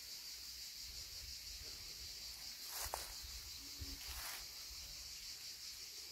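Steady, high-pitched insect chorus from the summer woods, with two brief rustles near the middle of the stretch.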